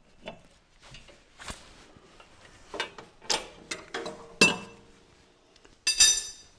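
Metal clinks and knocks on a mower's steel deck and belt pulleys, several with a short ring, then a louder bright metallic jingle near the end.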